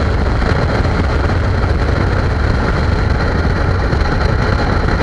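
Steady wind rush and engine drone of a touring motorcycle cruising on the open road, heard from a camera mounted on the bike behind its windscreen.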